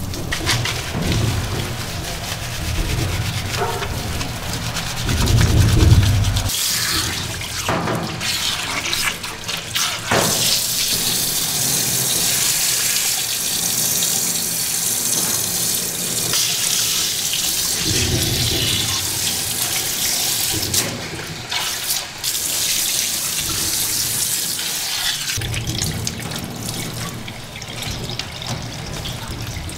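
Water spraying from a grooming tub's hose as a wet cat is rinsed: a steady hiss that starts about six seconds in, after a low rumble in the opening seconds.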